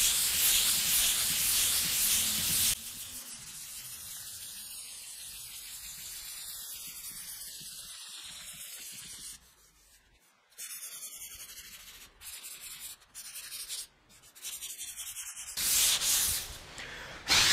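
Polyurethane primer on a pickup tailgate being hand-sanded with a sanding block and 220-grit sandpaper: continuous back-and-forth rubbing strokes. The strokes are loud for the first few seconds, then fainter with a couple of short pauses, and grow louder again near the end.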